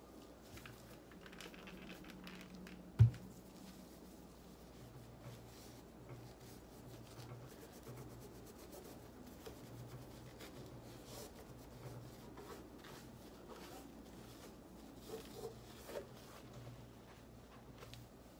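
Cloth rubbing and wiping over the casing and grille of a mini guitar amplifier, faint and continuous. A single sharp thump about three seconds in.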